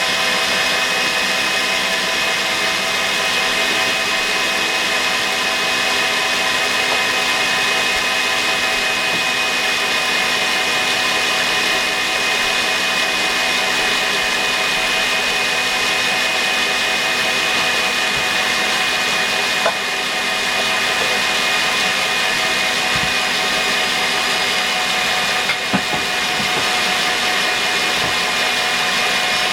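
Electric mixer running steadily at high speed, whipping duck egg whites toward stiff peaks, with a steady whine. A couple of light knocks come near the end.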